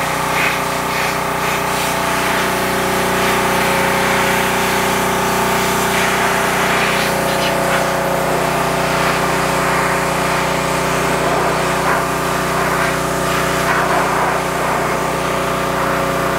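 Pressure washer running steadily, its motor's even hum under the hiss of the high-pressure water jet blasting a transmission case.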